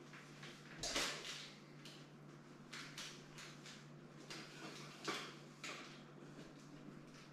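Softbox being handled: brief rustling and scraping of its fabric and frame, the loudest about a second in and another about five seconds in, over a steady low hum.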